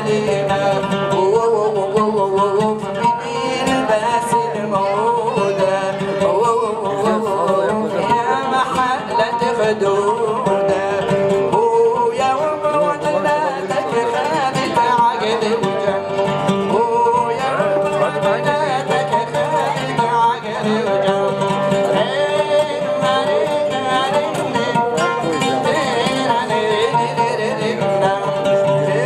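Oud played with a plectrum through the stage sound system: a quick plucked melody of running, ornamented notes in an Arabic style.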